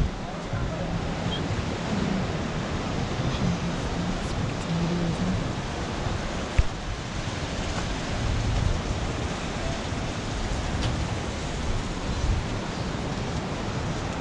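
Ocean surf breaking and washing in along the shore, a steady rushing noise, with one sharp tap about halfway through.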